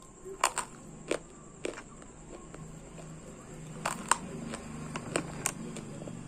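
Multani mitti (Fuller's earth clay) being bitten and chewed: a string of sharp, irregular crunches, several in the first two seconds and another run about four seconds in.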